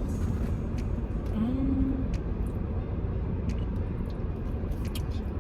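Steady low rumble of a car cabin, with scattered short clicks and crinkles of eating and food packaging, and a brief hummed 'mm' about a second and a half in.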